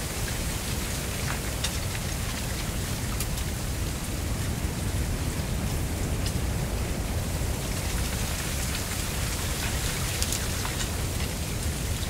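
Mistral wind blowing through a dense stand of dry giant reed (Canne de Provence, Arundo donax): a steady rustle of the canes with scattered light ticks, over a low wind rumble.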